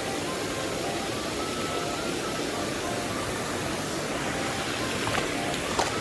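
Mountain stream water rushing steadily, with a few faint clicks near the end.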